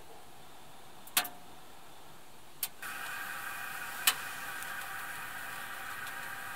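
Small wood stove burning, with a few sharp crackles from the fire. From about three seconds in, a louder steady hiss with a faint whine joins as a metal mug of water heats on the stove top.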